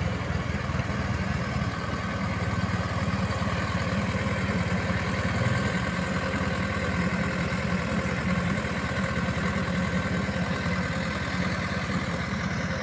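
Backhoe loader's diesel engine idling steadily at an even speed.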